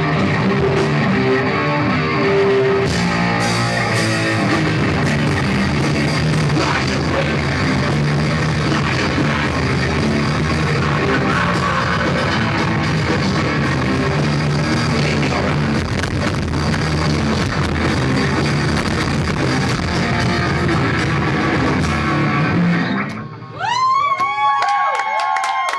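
Rock band playing live: electric guitars, drum kit and vocals, in a poor-quality recording. The song stops about 23 seconds in, and a loud voice calls out in a few long, rising-and-falling cries.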